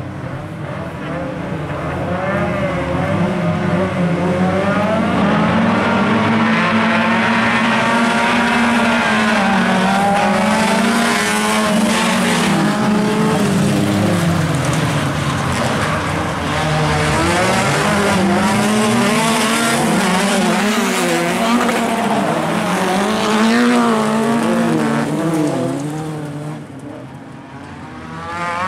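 A pack of rallycross cars of up to 1600 cc racing flat out, several engines revving at once with their pitch climbing and dropping through the gear changes. The sound dips near the end as the cars pull away, then comes back up.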